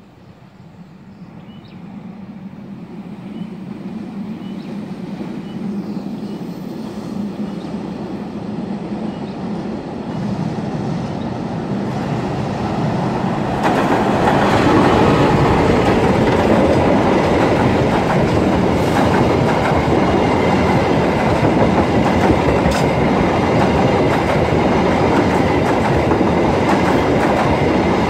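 Diesel-electric locomotive hauling a passenger train across a steel girder bridge: a low engine hum grows steadily louder as it approaches. About halfway through the locomotive passes close by, and the loud rumble and clickety-clack of the coaches' wheels on the rails takes over.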